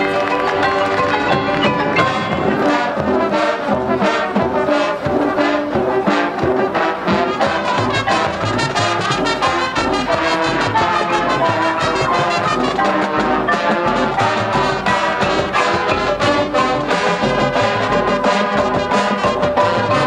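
Marching band playing live: a brass section sounding full chords over percussion in a steady beat, with a deeper bass coming in about eight seconds in.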